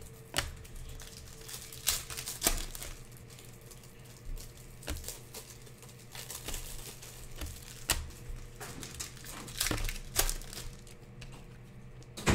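A stack of Panini Prizm chrome basketball trading cards being flipped through by hand: irregular clicks, flicks and short slides of stiff card against card, over a faint steady hum.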